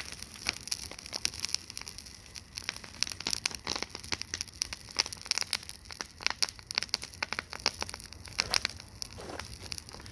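Bonfire burning, with irregular sharp crackles and pops of burning wood over a low steady hiss.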